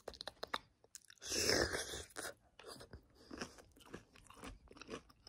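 Close-mic crunching and chewing of raw cucumber, with wet mouth smacking: a loud crunchy bite about a second in, then a run of short crisp crackles as it is chewed.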